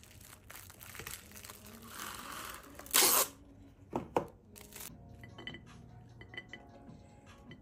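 Plastic cling wrap rustling and being pulled off cut papaya halves, with a short loud crinkling rip about three seconds in. Two sharp knocks follow about a second later, then a metal spoon lightly scraping seeds out of the papaya.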